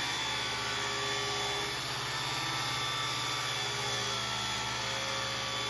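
Angle grinder running steadily with its abrasive disc pressed against steel, grinding down a weld.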